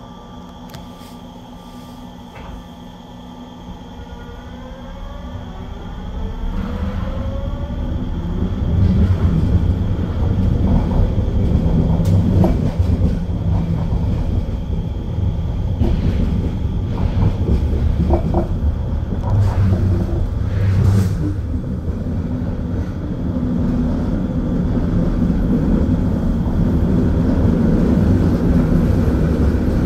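SkyTrain car, heard from inside at the front, starting off from a stop: a whine from its linear induction motor drive rises in pitch. Then a growing rumble of running wheels, with a few sharp clacks over the track switches.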